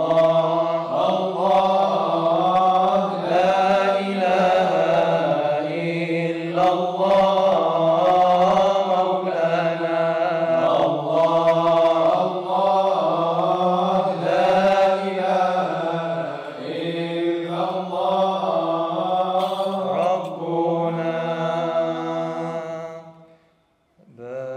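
Male vocal ensemble chanting an Arabic Sufi devotional song: voices hold a steady low drone beneath a wavering sung melody. The singing stops briefly near the end, then a new held note begins.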